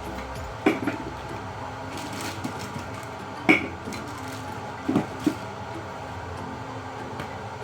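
A few sharp knocks and clinks of kitchenware being handled, such as a cup, spoon or container being set down, over a steady low background hum. Two come near the start, the loudest about halfway through, and two more a little later.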